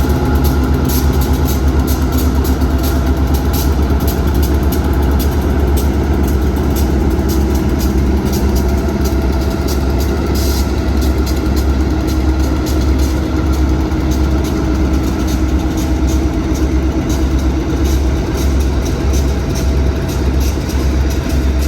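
Diesel locomotive engines idling with a heavy, pulsing low rumble, steady whining tones above it, and a rhythmic ticking clatter running through the whole stretch. This is the unusual noise the engines are making.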